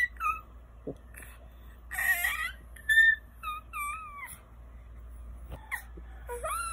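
A ten-month-old baby squealing and babbling: a series of short, high-pitched squeals that bend up and down in pitch.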